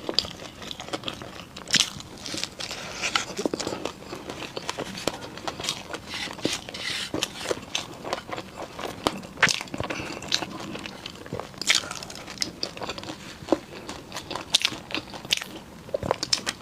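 Close-miked eating of crunchy Chinese pastries: repeated crisp bites and chewing, with scattered sharp crackles throughout.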